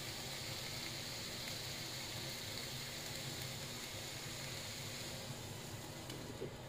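Mussels steaming and sizzling in an open pan: a steady hiss over a low hum, which dulls about six seconds in as the glass lid goes back on with a light knock.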